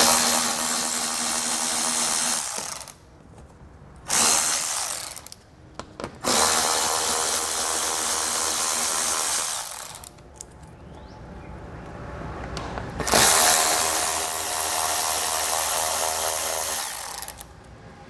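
Cordless electric ratchet whirring in four runs of a few seconds each, spinning out 7 mm head screws from a car's plastic splash shield.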